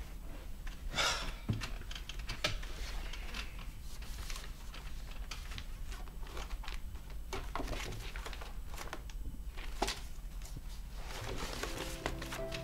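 Paper rustling as a stack of printed pages is handled and leafed through, with a few light knocks against the desk.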